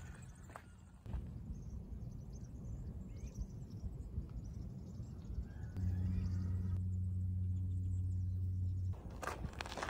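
Outdoor ambience in open fields: a low, steady rumble, with a steady low hum from about six seconds in for about three seconds.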